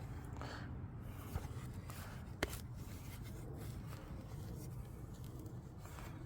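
Faint handling of the brush holder being worked off a Toro Greensmaster 1000 reel mower: scattered light ticks and one sharp click about two and a half seconds in, over a low steady hum.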